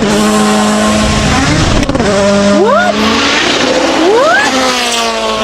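Rally car engine at high revs, holding a steady pitch and then climbing sharply twice, about a second and a half apart, as it accelerates hard.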